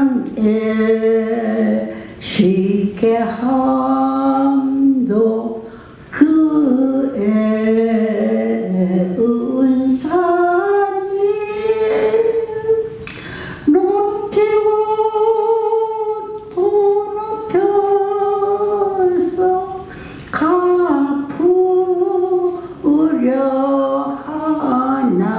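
Elderly woman singing a Korean song unaccompanied into a microphone, in long held notes that step up and down in pitch, with a man's voice singing along.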